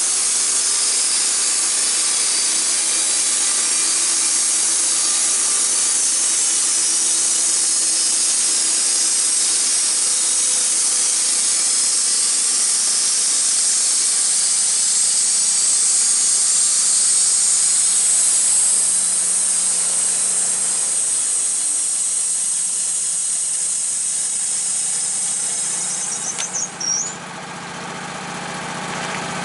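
Gas-powered sawmill running under load as its blade cuts through a log, a loud steady hissing saw noise over the engine. About two-thirds of the way through the cut ends and the engine drops to a quieter run.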